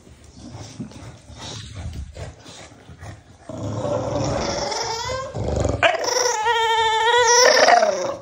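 English bulldog growling, louder from about halfway, then a long whine with a wavering pitch near the end.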